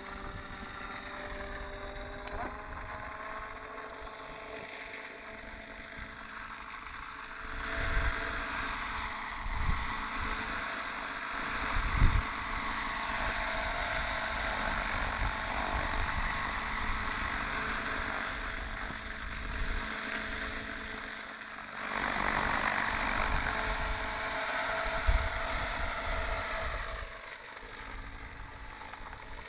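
60-class radio-controlled helicopter running, its whine rising in pitch about two seconds in as it spools up on the ground, then louder from a few seconds later as it lifts off, hovers and flies about. A few short low thumps on the microphone.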